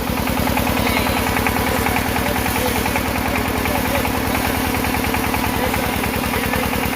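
Engine of a soil-test boring rig running steadily, with a rapid, even beat.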